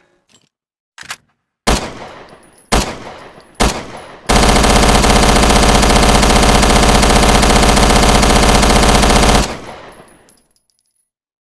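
Thompson submachine gun firing: three single shots about a second apart, each with a fading echo, then one long burst of rapid automatic fire lasting about five seconds. The burst cuts off sharply and its echo dies away.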